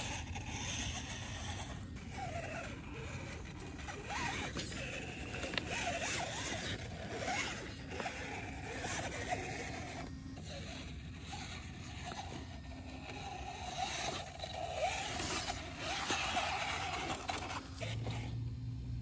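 Axial Wraith Spawn radio-controlled rock crawler driving over rocks: its electric motor and gears whine, wavering in pitch with the throttle, while the tyres and chassis scrape and knock on stone.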